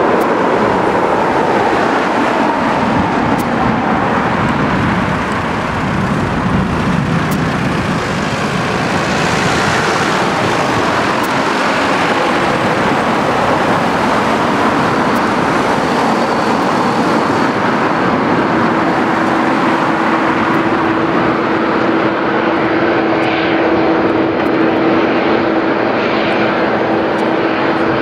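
Boeing 787 Dreamliner's jet engines: a loud, steady rush of airliner engine noise. About two-thirds of the way through, a steady hum of one pitch joins it.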